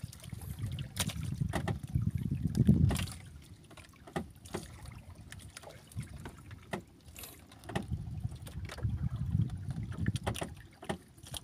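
Sea water sloshing against the hull of a small outrigger boat, swelling and fading, with wind on the microphone and scattered light clicks and knocks.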